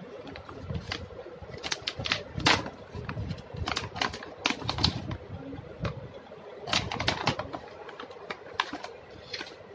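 Stiff plastic pouch being handled and pulled open at its sealed top, the plastic crinkling irregularly with a few sharper crackles.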